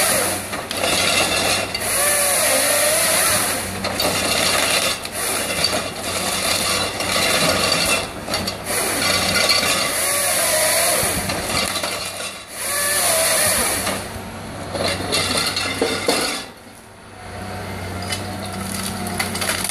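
Caterpillar 550 harvester working a big spruce log with its four-roller Fabtek processing head: the diesel engine revs under hydraulic load as the feed rollers drive the stem through the delimbing knives, and the head's bar saw screams through the log in short cuts a few times. The sound drops off briefly near the end before the machine picks up again.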